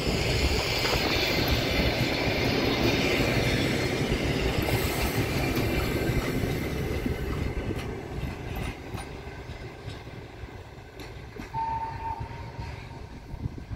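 Passenger train coaches rolling past on steel rails: a loud, steady rumble of wheels that fades over the second half as the train draws away. Distinct clicks of wheels over rail joints stand out as it recedes, with a brief high tone about twelve seconds in.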